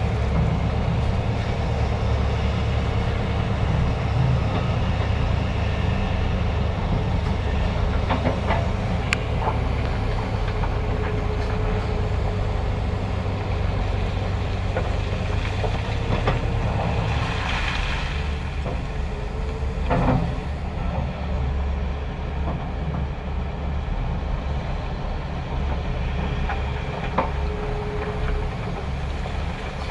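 Heavy diesel engines of a Hitachi ZAXIS 470H excavator and a dump truck running with a steady low rumble. A faint tone comes and goes over it, and a few brief knocks sound about a third and two-thirds of the way through.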